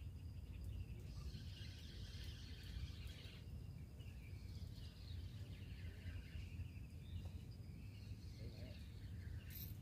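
Wind rumbling on the microphone, with birds and insects chirping steadily in the background, and one short sharp click near the end.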